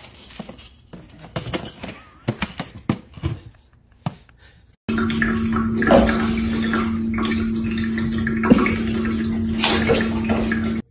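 Clicks and knocks of an automatic pet feeder's plastic lid being handled. After a cut about five seconds in comes a steady hum with a hiss of running water, as from a pet water fountain's pump, with a few sharp knocks.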